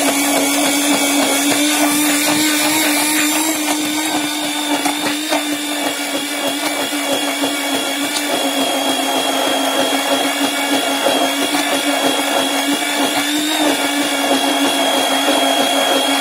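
Electric hand blender running steadily in a plastic beaker, blending eggs and flour into a batter: an even motor whine that dips slightly in loudness a few seconds in.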